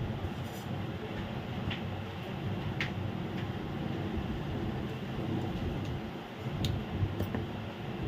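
Light metal ticks and clicks, about five spread out, as a thin steel rod works against a small trimmer blade head, over a steady background hiss.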